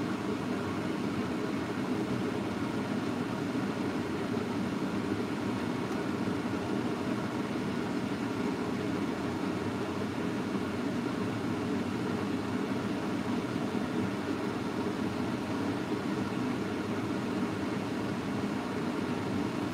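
A steady, unchanging hum and hiss of kitchen background noise.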